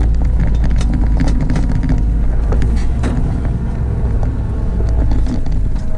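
Fire engine's diesel engine and road noise while driving, a loud, steady low rumble with scattered rattles and clicks.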